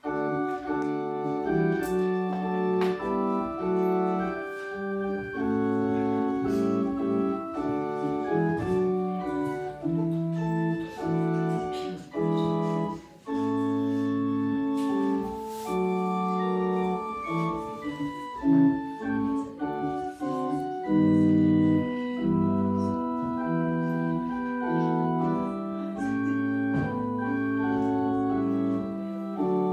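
Organ playing the closing voluntary after the benediction: sustained full chords that change every second or so, starting abruptly.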